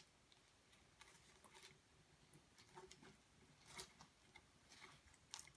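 Near silence with a few faint, scattered clicks and light taps: faucet parts being handled while the sealing gasket is fitted into the bottom of the faucet base.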